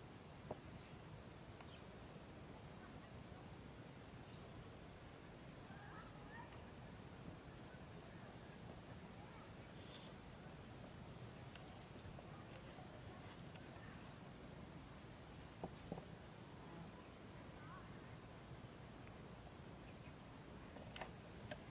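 Insect chorus: a steady high buzzing in several layered tones that swells and eases every few seconds, with a few faint clicks.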